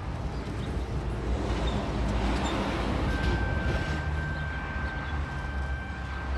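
Low steady rumble of a 2005 Chevy Tahoe running, with a thin steady high tone starting about halfway through.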